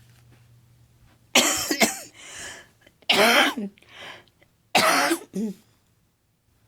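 A woman coughing hard three times, about a second and a half apart, each harsh cough followed by a shorter hacking cough.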